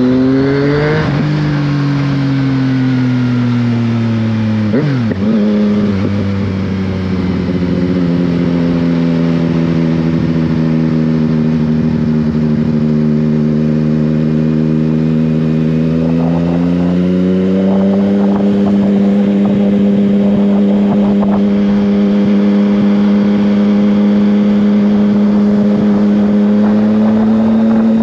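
Yamaha Tracer 900GT's 847 cc inline three-cylinder engine running through an Akrapovic exhaust while riding. The revs rise, then fall away with a quick break in the note about five seconds in, a gear change. The engine cruises at a steady lower note, then pulls up in pitch about two-thirds of the way through and holds a higher steady note.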